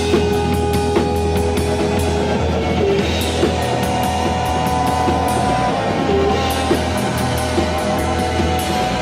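Live rock band playing an instrumental passage: a full drum kit with regular cymbal and drum hits over a steady bass line and held guitar notes.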